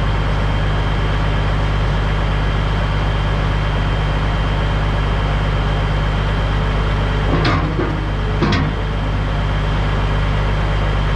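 Heavy truck's diesel engine running at a steady speed, a constant low drone. Two short sharp sounds come about a second apart near the end.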